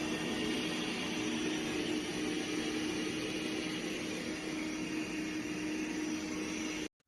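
AIRROBO T20+ robot vacuum running: a steady whirring noise with a low hum, which cuts off suddenly near the end.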